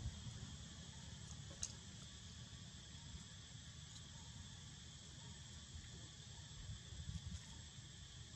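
Faint, steady chirring of insects over a low rumble, with a brief click about a second and a half in.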